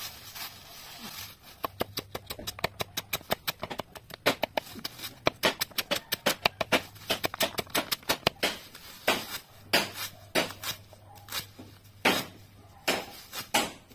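Machete blade chopping a bundle of green leaves against a wooden stump: a rapid run of sharp chops, several a second, starting about a second and a half in, then slower, separate chops from about nine seconds in.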